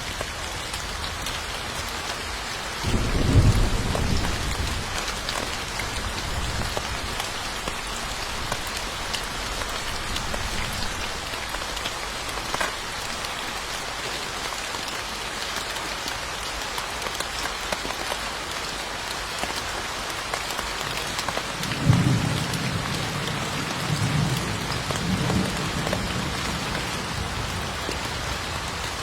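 Steady rain falling, with low rumbles of thunder: one about three seconds in and a longer rolling one from about 22 seconds in.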